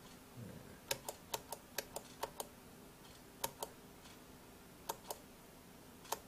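Tap-tempo footswitch on a home-made footswitch box for a Line 6 POD 2.0, pressed by hand to set the tempo. Each press and release makes a pair of sharp clicks: four quick taps about a second in, then slower taps roughly every second and a half.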